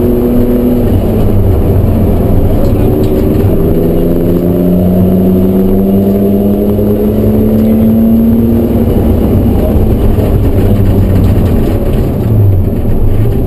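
BMW E36 M3's straight-six engine heard from inside the stripped race cabin, pulling hard with its note climbing steadily over several seconds, then dropping away about nine seconds in. Road and tyre rumble runs underneath.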